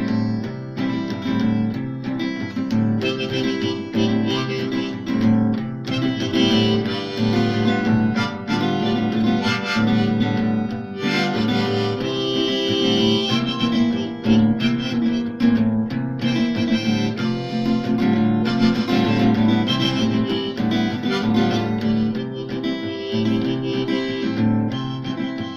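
Diatonic harmonica in a neck rack playing an instrumental solo over a strummed acoustic guitar, between sung verses.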